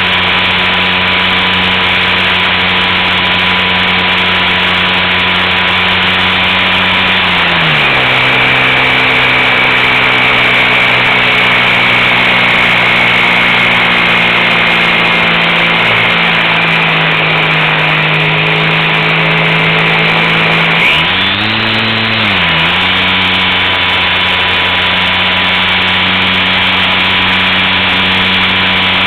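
Super Cub LP's motor and propeller heard from a camera on the plane in flight, with wind rush. The motor runs steadily and drops to a lower pitch about a quarter of the way in as the throttle is eased back. About two-thirds of the way through it swings up and back down, then settles back at the first, higher setting.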